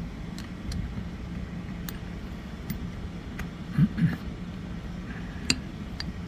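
Scattered light, sharp metallic clicks and taps as the rocker shaft is eased back a little in a Triumph Bonneville's aluminium rocker box, over a steady low background hum.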